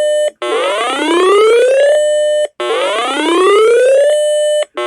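Electronic whooping alarm tone, the attention signal ahead of an emergency alert broadcast. It repeats about every two and a quarter seconds: each time it rises in pitch, holds a steady tone for a moment, then cuts off briefly.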